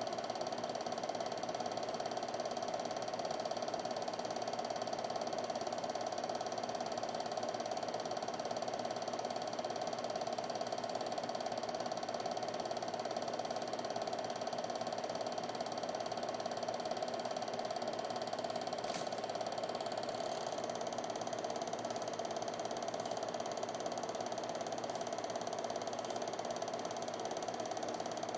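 Film projector running steadily, the even mechanical whir of its film-advance mechanism with a constant tone. A single faint click comes about 19 seconds in.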